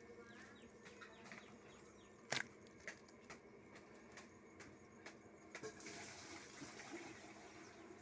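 Quiet handling of a raw chicken, skin and meat being pulled apart by hand: a sharp click a little over two seconds in, a few softer ticks, and a brief hiss near the end.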